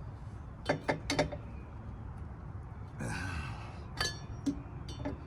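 Metal clinks of a four-way lug wrench on a trailer wheel's lug nuts as they are tightened. There are three sharp clinks about a second in, then more near the end, the last the loudest, some with a brief metallic ring.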